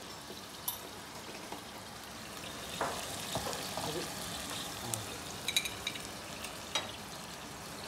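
Chicken pieces, onions and tomatoes sizzling in oil in a stainless steel pot, stirred with a metal spoon that clicks against the pot a few times.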